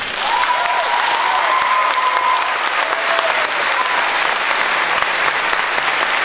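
Audience applauding, a dense steady clatter of many hands clapping, with one long high call from someone in the crowd during the first two seconds.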